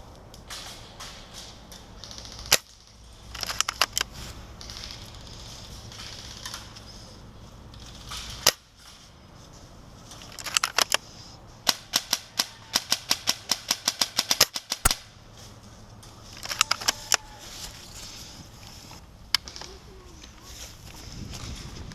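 Airsoft guns firing: single sharp shots, short volleys, and a rapid run of about five shots a second near the middle.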